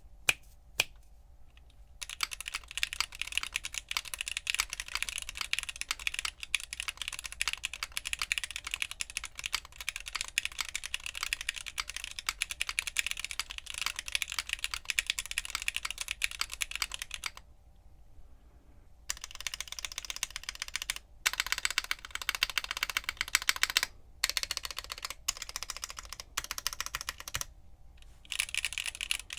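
Mechanical keyboard fitted with Gateron linear switches being typed on continuously: a fast, dense run of key clacks, a pause of about two seconds, then further typing broken by brief stops.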